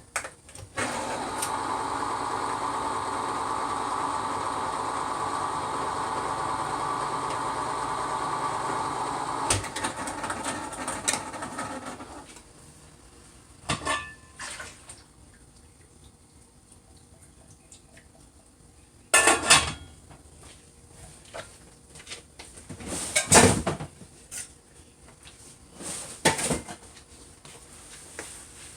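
Liquid pouring steadily into a cooking pot for about ten seconds, then fading out, followed by scattered clinks and clatters of metal cans and pot.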